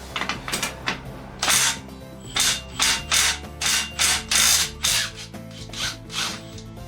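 Electric power tool run in short, repeated bursts, about two a second, working loose a bottom bracket that had seized in the bicycle frame.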